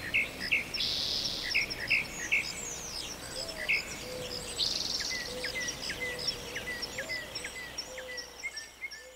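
Several birds singing together, with many short repeated chirps, higher twittering calls, and two brief buzzy trills, about a second in and again about five seconds in. A low, thin whistled note comes and goes through the middle, over a faint steady hiss.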